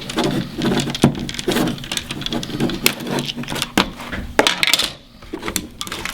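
Plastic case of a 2GIG Go!Control alarm panel being handled and pried apart: a quick, irregular run of clicks, knocks and rattles, easing off about five seconds in.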